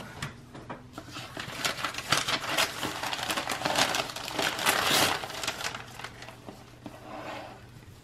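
Paper wrapping rustling and crinkling as it is handled and pulled off a book, loudest in the middle and dying down over the last few seconds.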